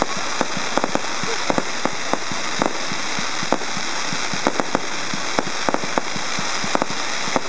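Fireworks going off: a rapid, irregular run of sharp pops and crackles, several a second, over a steady hiss.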